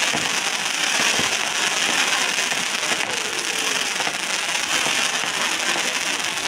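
Ground-launched fireworks battery firing rising comets that leave crackling trails: a dense, continuous crackle with no single big bang.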